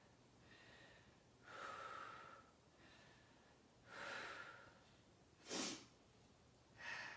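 A woman's faint breathing as she holds a plank: about four separate breaths, with a short sharp one about five and a half seconds in that is the loudest.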